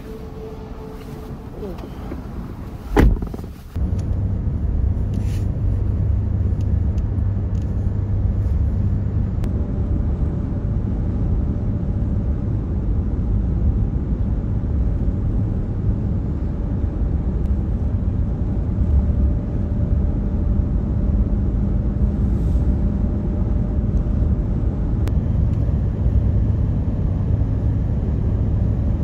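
A car door shuts with a single loud thud about three seconds in. Then a steady low drone of engine and road noise, heard from inside the cabin of the moving car.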